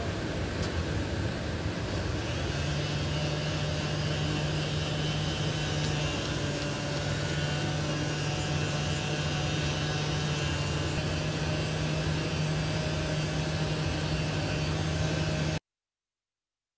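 Pneumatic random orbital air sander running steadily while sanding a part, a constant hum over a rushing noise. It cuts off suddenly near the end.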